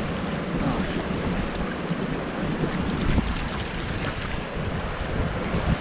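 Rushing water of a shallow, low-flow river rapid, with wind buffeting the microphone.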